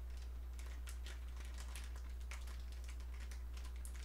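Plastic instant-ramen bag crinkling in irregular crackles as it is pinched shut and clipped with unsplit wooden chopsticks. A steady low hum runs underneath.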